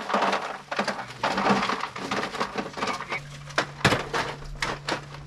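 Irregular knocks and clicks of things being handled, the sharpest about four seconds in, over a low steady hum that drops out for a while and comes back.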